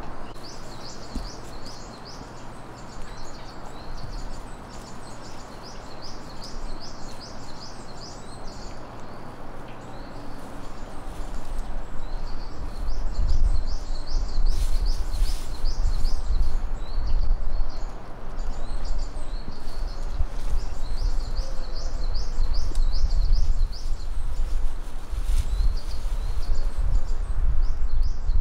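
A small bird singing long runs of fast, rising high chirps, several a second, with a pause in the middle. Under it a low rumble grows louder about halfway through.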